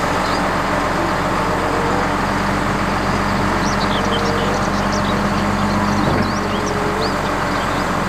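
Flatbed tow truck's engine running steadily with a low, even drone. Birds chirp now and then.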